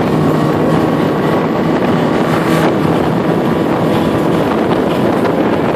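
Mercury outboard motor running steadily at speed, pushing an inflatable boat along, with wind rushing over the microphone.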